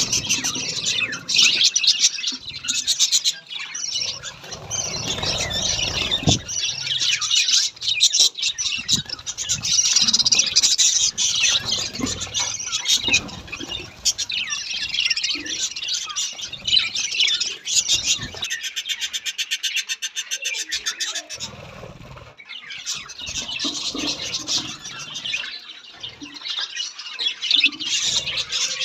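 Pet budgerigars chattering and warbling continuously, with quick chirps and harsh squawks.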